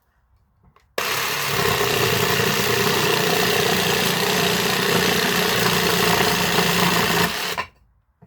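Dewinner cordless jigsaw with a wood blade cutting through a 25 mm decking board on pendulum orbital setting 3, the aggressive fast-cut setting that tears the wood out more. It starts suddenly about a second in, runs steadily for about six and a half seconds, then stops.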